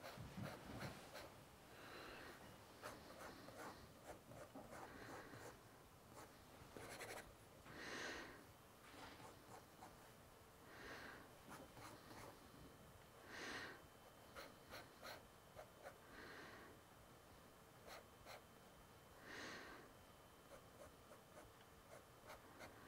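Faint scratching and ticking of a fountain pen nib on sketchbook paper as lines are marked in, with soft breaths about every three seconds.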